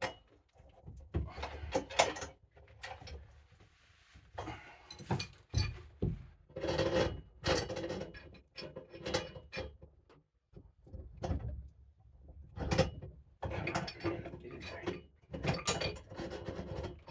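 Irregular knocks, clunks and scraping from prying and bending an ice auger drill bit back into shape with a hand tool.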